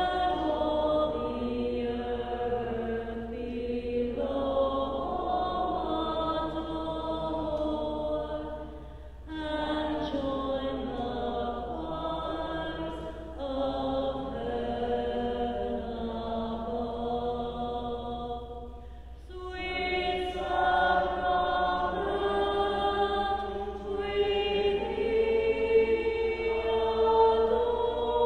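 Hymn singing: sustained sung phrases several seconds long, with short breaks between lines.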